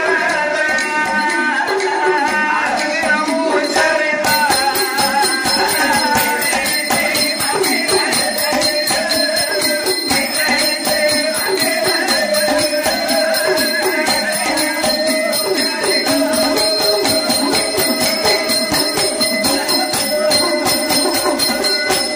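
Villu pattu ensemble playing an instrumental interlude: fast, even percussion strokes with jingling bells, which grow denser about four seconds in, over a held melodic line.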